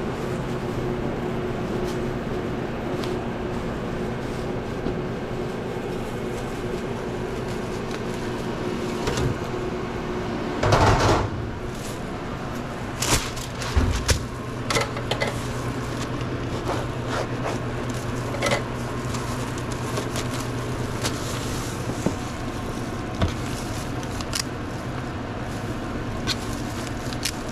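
Steady machine hum of restaurant counter equipment, with a low drone and a few fixed tones, broken by occasional knocks and clatters of handling at a sandwich counter. The loudest is a short noisy burst about eleven seconds in, after which the hum settles into a different low tone.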